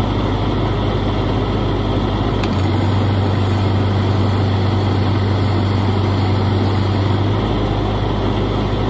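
Lincoln SA-200 engine-drive welder running steadily. About two and a half seconds in, a MIG arc is struck with a Miller Spoolmatic-2 spool gun on aluminum with 5356 wire. The engine note changes as it pulls under the welding load for about five seconds, then settles back when the arc stops.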